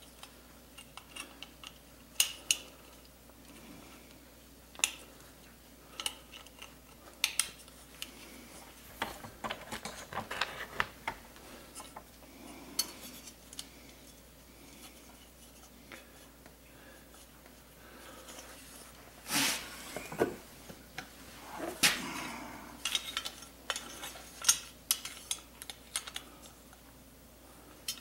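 Scattered metallic clinks and scrapes as a chainsaw muffler and its small hardware are handled by hand, with a few louder knocks about two-thirds of the way through.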